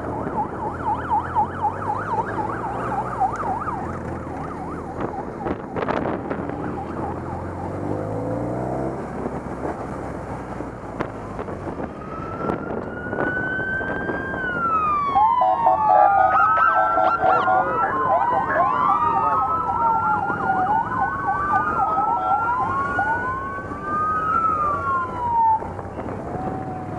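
Police motorcycle sirens. A fast warbling yelp at the start, over the low hum of motorcycle engines. From about halfway, several sirens sound at once with overlapping rising and falling wails and short pulsed tones.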